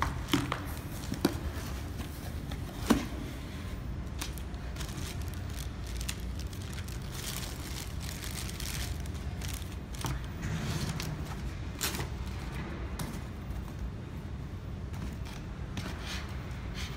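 Plastic air-column packaging and plastic bags crinkling and rustling as a microscope is unpacked by hand, with scattered sharp knocks of parts being handled and set down, the loudest in the first three seconds. A steady low hum runs underneath.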